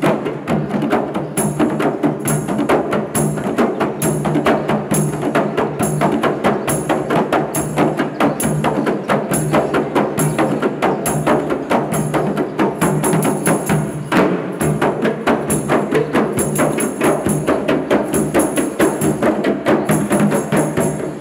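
Percussion music from traditional drums: fast, dense drumming with a bright high beat repeating a little under once a second, accompanying a traditional dance.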